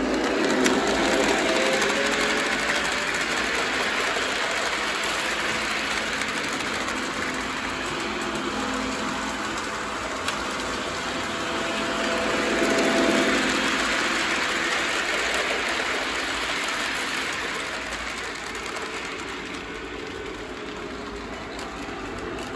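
Lionel O-gauge toy trains running on three-rail track: a steady whir of electric motors and wheels rolling on the rails, swelling as a locomotive passes close about a second in and again around the middle, then easing off.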